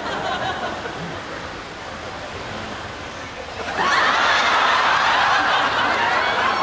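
Low pool-water sloshing, then about four seconds in a loud outburst of audience laughter that keeps going.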